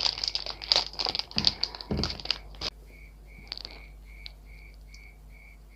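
A quick run of small clicks and rattles for about two and a half seconds, from handling the honey bottle as the multiflora honey is added to the drink. After that only a faint chirp remains, repeating two or three times a second.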